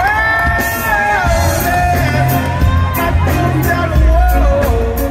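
Live reggae band playing with bass and drums, while a male singer holds long, wavering notes that glide up at the start.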